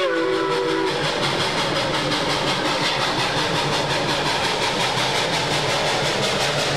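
Rio Grande K-28 2-8-2 steam locomotive working hard, its exhaust beating in a fast, even rhythm. The last of a steam whistle blast dies away in the first second, its chord sagging in pitch.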